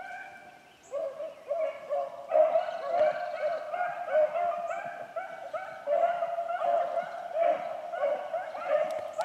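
Pack of rabbit-hunting dogs baying on the chase, running a rabbit's trail as it circles. The calls come in about a second in and go on almost without a break, several voices overlapping.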